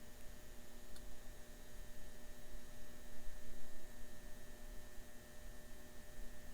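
Steady electrical hum made of several fixed tones over a low, uneven rumble, with one faint click about a second in.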